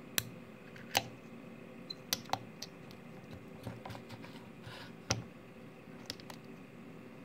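Irregular light clicks and knocks as a hand handles a small pulse motor, touching its plastic rotor and moving its wooden base. The loudest knocks come about a second in and about five seconds in, over a faint steady hum.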